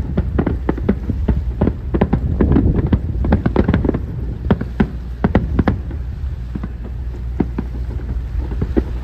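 Fireworks shells bursting in a rapid, irregular string of bangs, several a second, thinning out somewhat past the middle, over a steady low rumble.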